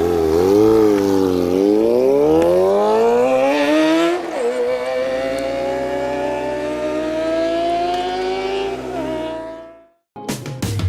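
Kawasaki ZX-25R inline-four through a Sphere stainless full-system aftermarket exhaust, accelerating hard with its pitch climbing and dropping at two gear changes, then fading out as the bike pulls away. Music starts just before the end.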